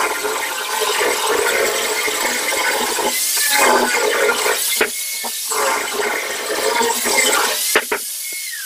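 Electric angle grinder with a sanding disc, grinding the edge of a wooden flush door: a steady rough abrasive noise broken by a few short pauses. Near the end the disc comes off the wood and the motor's pitch falls.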